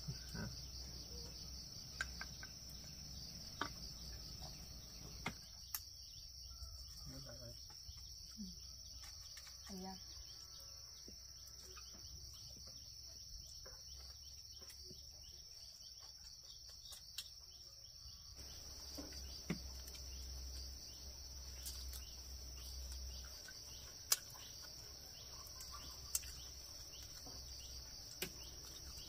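Steady high-pitched chorus of insects, with a few sharp knocks scattered through it, the loudest near the end.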